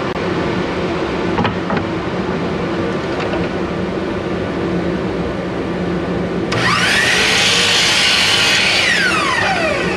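A steady machine hum runs throughout. About six and a half seconds in, a power saw spins up and cuts wood to length, then winds down with a falling whine near the end.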